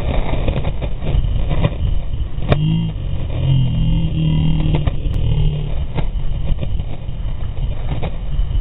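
Longboard wheels rumbling on pavement at downhill speed, with wind rushing over a deployed skate sail and the microphone. A few sharp clicks or knocks, and a low drone for a couple of seconds in the middle.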